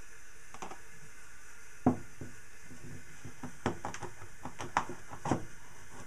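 A metal pipe flange knocked down onto a wooden workbench about two seconds in, the loudest sound, followed by a run of lighter clicks and knocks as a plastic funnel is handled and slid over the galvanized steel pipe.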